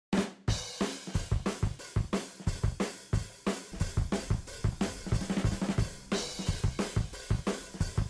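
Drum-driven intro music: a steady drum-kit beat with kick, snare and cymbals.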